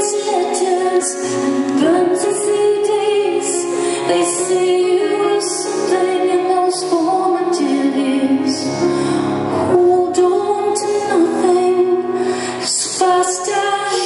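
Live concert music: a grand piano accompanied by a small string ensemble, with a woman singing long held notes over them.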